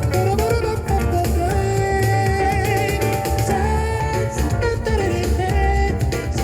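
A band track played back through a small powered studio monitor and picked up by microphone: a steady drum and bass beat under a held, wavering melody line.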